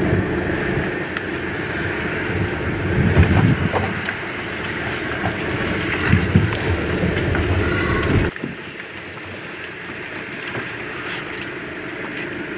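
Car driving over a muddy, waterlogged dirt road, heard from inside the cabin: a steady rumble of engine and tyres on wet ground. It drops suddenly to a quieter level about eight seconds in.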